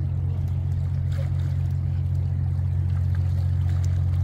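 Steady low mechanical drone that does not change.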